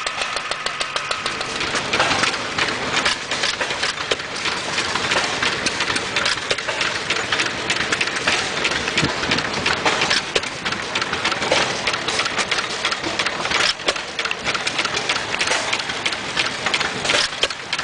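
Small gas engines running: a steady mechanical clatter with fast, even ticking.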